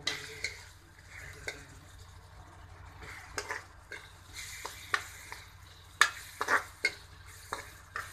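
Chopped onion, garlic and green chillies sizzling in hot oil in a wok while a metal spatula stirs them, scraping and knocking against the pan. The spatula strokes come thicker and louder in the second half, the loudest about six seconds in.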